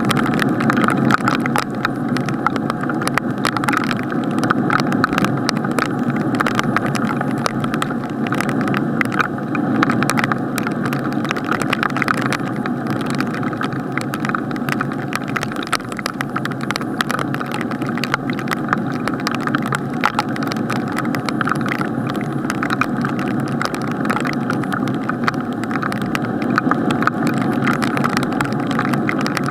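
Rain striking an action camera's sealed waterproof housing, heard muffled through the case: a dense, steady patter of drop impacts over a continuous rush.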